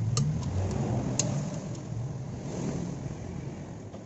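A vehicle engine running steadily, its pitch rising and falling a little, with three short sharp metallic clicks in the first second and a half as hand tools work on the motorcycle engine.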